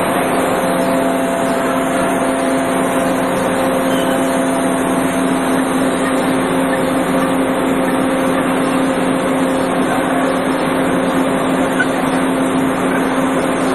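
Wire and cable extrusion line machinery running: loud, steady factory machine noise with a low hum and fainter higher tones held at an even pitch.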